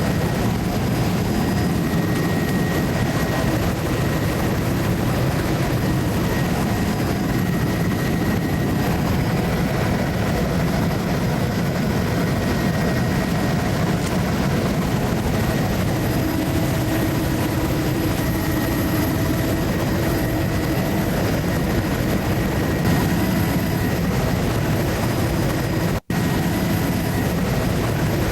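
Steady drone of a low-flying survey aircraft's engine, heard from on board, with one very brief cut-out near the end.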